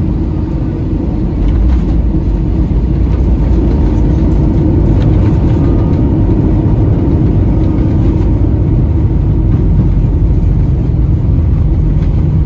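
Airbus A320 airliner heard from inside the cabin: a loud, steady low rumble of the jet engines and airframe, stepping up about a second and a half in and then holding.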